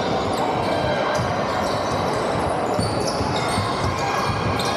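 Basketball game on a hardwood court in a large, echoing sports hall: a ball bouncing on the floor, short high squeaks of shoes on the court, and a steady din of players' voices.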